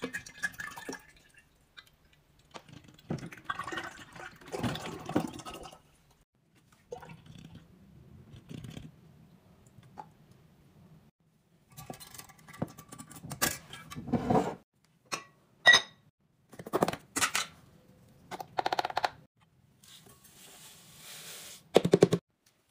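A white laundry product pours from a jug into a glass drink-dispenser jar. Then come a run of sharp clinks and taps as the dispenser's glass lid is set on and handled, and a short thump near the end.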